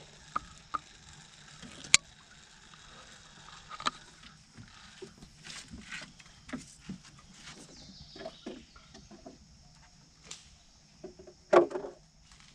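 Scattered light knocks and clicks of fishing gear and feet in a small fiberglass boat, with a sharp click about two seconds in and a louder thump near the end, over a faint steady high hiss.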